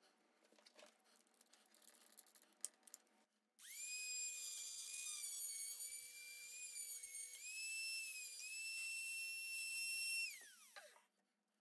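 A handheld rotary tool fitted with a thin abrasive cut-off disc. It starts with small clicks as the disc is fitted onto the mandrel. About three and a half seconds in, the motor starts with a high, steady whine that dips slightly in pitch as the disc cuts a thin metal wire and throws sparks, then winds down with a falling whine near the end.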